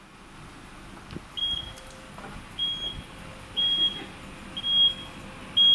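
Aftermarket power tailgate on a 2017 Mazda CX-5 sounding its warning beeper, short high beeps about once a second, after the button is pressed to open it. A faint click comes about a second in.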